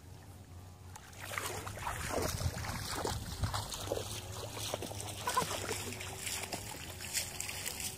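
Shallow muddy paddy water splashing and sloshing as hands grope through it and legs wade, an irregular run of splashes that starts about a second in.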